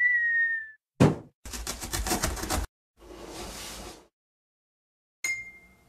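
A sequence of cartoon sound effects: a short whistle-like tone that dips slightly in pitch, a sharp thump, about a second of rapid rattling knocks, a softer rushing noise, and a brief ringing ping near the end.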